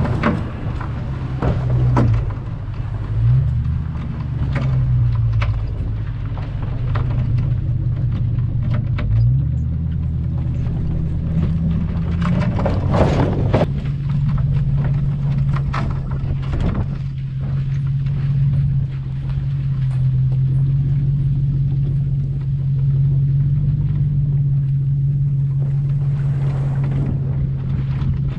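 An engine running with a steady low drone. Its pitch glides up and down a few times in the first ten seconds, then holds steady, with knocks and rattles over it.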